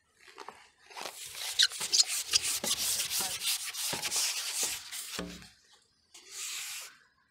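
Carbon fishing pole sliding and rubbing as it is drawn back and pushed out again: a gritty scraping with many small clicks, broken by a dull knock a little after five seconds, then a shorter scrape near the end.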